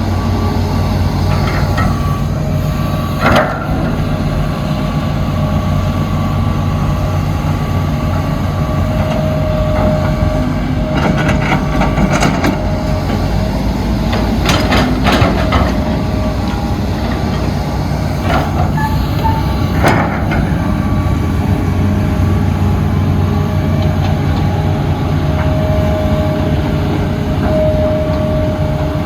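Excavator's diesel engine running steadily under work, with a faint steady whine above it and a few sharp metallic knocks scattered through.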